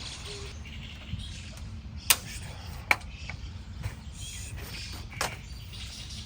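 A few sharp clicks or taps: two close together about two and three seconds in, a softer one near the end, over a faint steady background.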